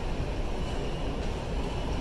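Steady low rumble and hiss while riding a subway station escalator, with no distinct knocks or calls.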